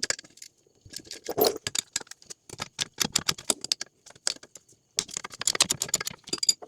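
A socket ratchet clicking in quick bursts of strokes while loosening the 14 mm rear-axle bolts of a Kawasaki KFX90 ATV, with short pauses between bursts.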